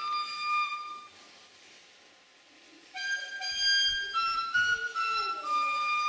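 Wooden shepherd's flute playing a quick folk tune in short, high notes. The tune breaks off about a second in, leaves a near-silent gap of about two seconds, then starts a new phrase.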